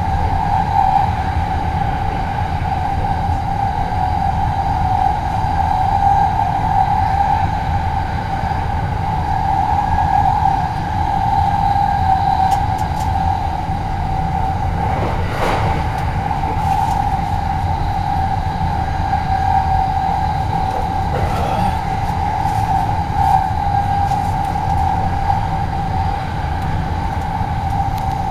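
Passenger train running, heard from inside the car: a steady low rumble with a constant hum-like whine over it, and a couple of brief clicks partway through.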